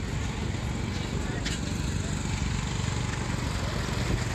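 A small engine running steadily, louder near the end, under background crowd chatter.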